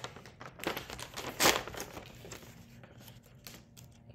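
A plastic cookie pouch being torn open by hand, crinkling and crackling in irregular bursts. The loudest crackle comes about a second and a half in, then smaller crinkles.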